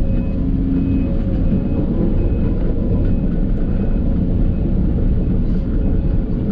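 Case CX210 excavator's diesel engine running steadily while digging out a septic bed: a loud, even low rumble.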